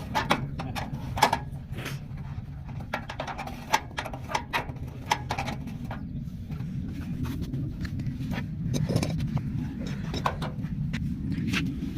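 Scattered sharp clicks and light knocks of tools and fittings being handled, over a steady low hum.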